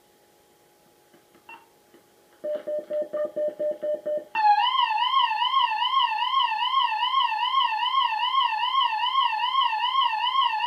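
Loudspeaker of a WB1401 warning broadcast receiver: a rapid series of about ten short beeps, then a loud warbling warning tone that wavers up and down about three to four times a second and cuts off suddenly.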